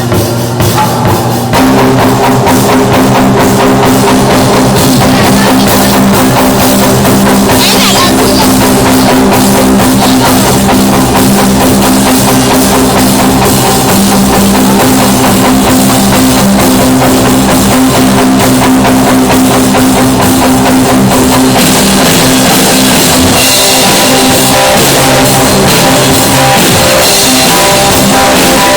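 Live rock band sound check: drum kit, electric guitar and bass guitar playing together loudly, holding around a C chord. The full band comes in about a second and a half in.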